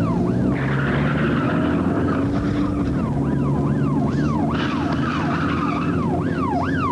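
Police car siren wailing up and down about twice a second over a car engine running.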